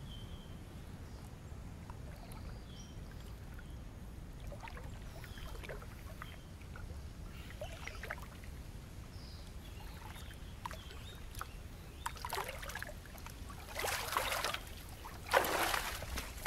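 Mangrove ambience: faint short bird chirps over a low steady rumble, with scattered light clicks. Near the end come two louder rough noises, each under a second long.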